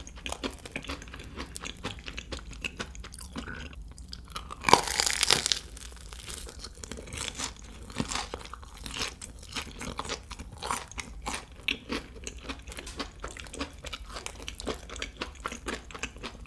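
Close-miked chewing of a crispy Monte Cristo sandwich, with a loud crunchy bite about five seconds in, followed by steady small crackles of chewing.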